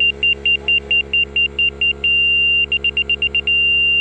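Laser level receiver on a grade rod beeping as it is slid to find a rotating laser's beam. It beeps about four times a second, holds a steady tone briefly, beeps faster, then settles into a steady tone about three and a half seconds in: the on-grade signal that it is level with the beam. A steady low hum runs underneath.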